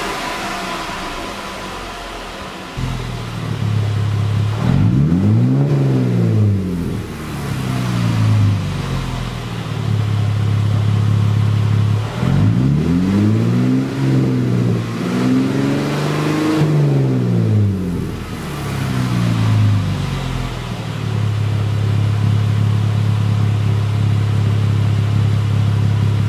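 2014 Jeep Wrangler's 3.6-litre Pentastar V6 through a new aFe 3-inch RB Hi-Tuck cat-back exhaust, held at a steady raised speed and revved up and back down about four times, once early and three times in a row midway.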